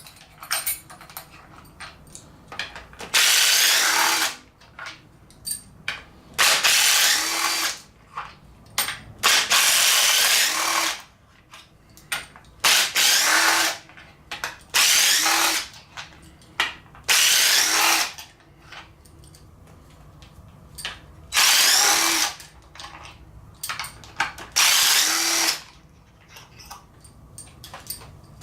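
Cordless 3/8-inch DeWalt impact wrench running in short bursts, about eight times, each a second or so long, loosening the 8 mm intake-manifold bolts on an LS engine one after another. Quieter clicks and handling noises come between the bursts.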